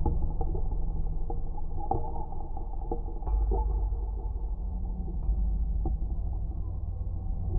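Dark ambient 'ghosts of the Titanic' sound-design drone: a deep, muffled underwater-style rumble with scattered short creaks and knocks.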